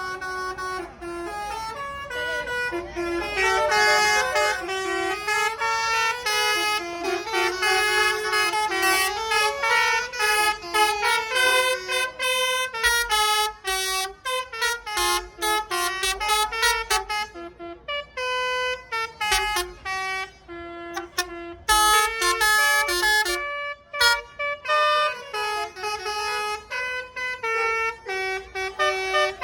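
Indonesian bus basuri musical horns playing fast telolet-style tunes over one another, the notes stepping up and down in quick succession, with a few short breaks about two-thirds of the way through.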